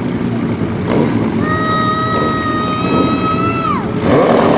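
Drag-racing sport bike engines running at the start line. About a second and a half in, one engine is held at a steady high-pitched note for about two seconds, then drops away. The engines get louder just before the end.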